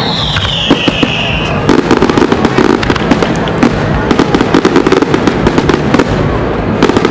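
Aerial fireworks going off: a whistle falling in pitch over the first second, a few sharp cracks, then dense rapid crackling from about two seconds in.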